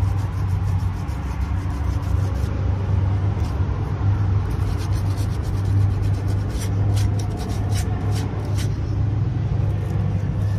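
Hand-sanding the peeling paint on a garden statue with coarse 80–100 grit sandpaper: quick scratchy rubbing strokes, coming in short runs, over a steady low hum.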